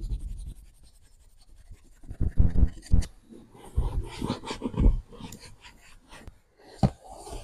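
A detailing brush and microfiber towel rubbing and scrubbing over a leather car seat being cleaned, in irregular strokes with dull bumps.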